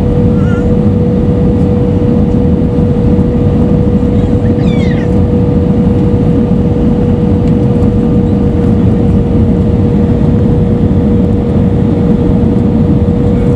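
Cabin noise inside an Airbus A320 on approach with flaps extended: a steady roar of engines and airflow with a constant hum-like tone running through it.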